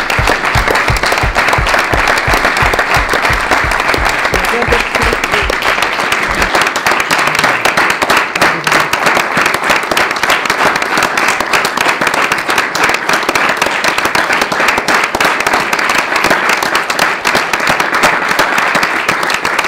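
A group of people applauding steadily, a dense crackle of many hands clapping. A regular low thumping, about two to three beats a second, runs under it for the first six seconds or so.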